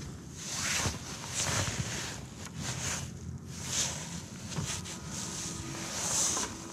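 Wind buffeting the microphone in gusts that swell and fade every second or two.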